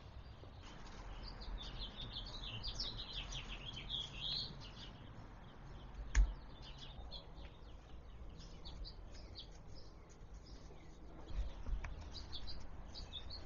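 Small birds chirping in quick, repeated calls, with one sharp click about six seconds in and a couple of soft low thumps a little before the end.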